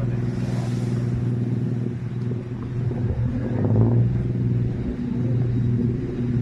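An engine running steadily, a low droning hum that swells louder about four seconds in.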